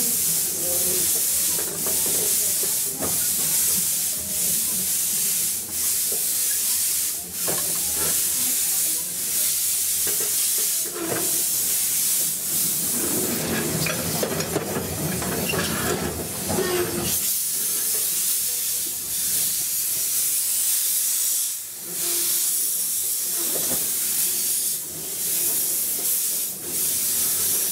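Small narrow-gauge steam locomotive running slowly, with a steady loud hiss of steam that breaks off briefly every second or two, over low knocking.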